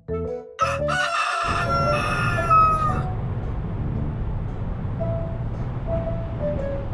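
A rooster crows once, a cock-a-doodle-doo lasting about two seconds that falls in pitch at the end. A steady low rumble follows.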